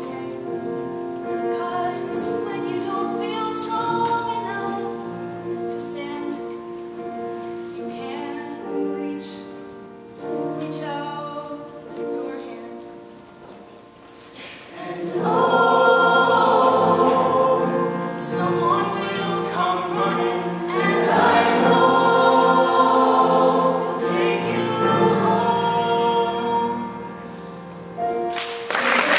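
Mixed choir singing with grand piano accompaniment, softly at first and thinning out about halfway, then swelling to full, loud singing. Applause breaks out right at the end.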